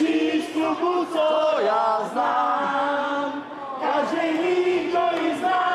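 A group of voices singing a song together in Czech, on long held notes.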